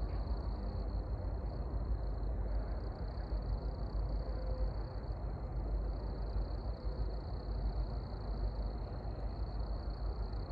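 Steady outdoor night background: a low rumble with a constant, thin high-pitched drone above it. No single event stands out.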